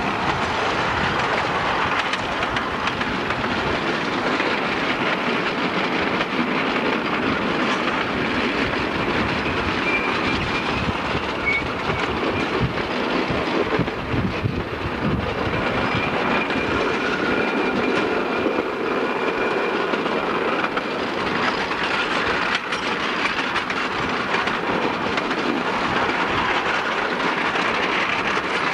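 A 10.25 in gauge miniature railway train running, heard from an open coach: a steady rumble of wheels clattering over the rail joints, with faint high wheel squeals now and then.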